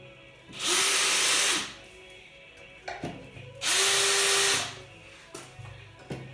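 Handheld power drill running in two bursts of about a second each, its motor whine rising as it spins up, with a few light knocks between.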